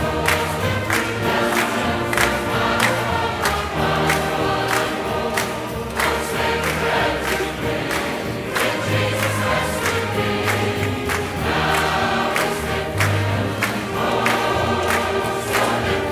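Large church choir singing a gospel song over band accompaniment, with a moving bass line and a steady beat.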